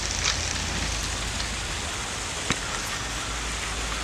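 A child's kick scooter rolling over a gravel path: a steady rolling noise, with one sharp click about two and a half seconds in.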